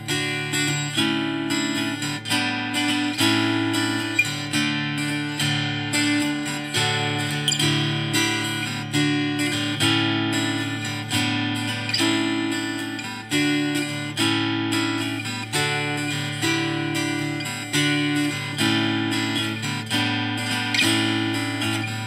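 Acoustic guitar music, plucked and strummed notes in a steady, unhurried rhythm, each note ringing and fading before the next.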